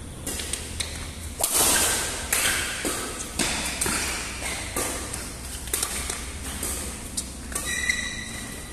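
A badminton doubles rally: sharp pings of rackets striking the shuttlecock, one to two a second, mixed with thuds of players' footsteps on the court and a brief shoe squeak near the end.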